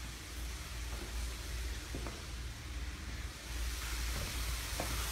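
Steady hiss with a low hum underneath, from a phone recording's background noise, and a couple of faint clicks.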